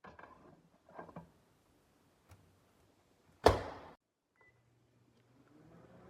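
Microwave oven door shut with a sharp thunk, a short keypad beep, then the microwave starts running with a steady low hum that builds near the end.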